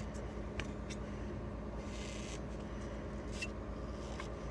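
Faint handling noise: a few light clicks and a brief soft rub about two seconds in, over a steady low background hum.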